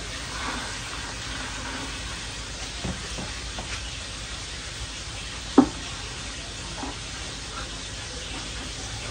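Marinated chicken legs sizzling steadily in hot oil in an electric frying pan, being seared to brown them. A few light knocks sound as the pieces are moved by hand, with one sharp knock about halfway through.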